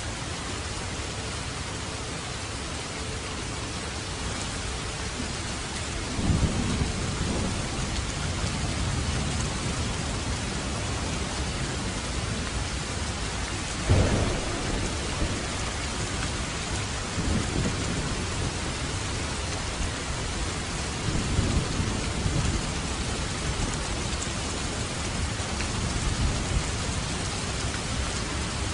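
Steady rain with thunder. A low rumble swells about six seconds in, a sharp clap comes near the middle and is the loudest moment, and further rolling rumbles follow later.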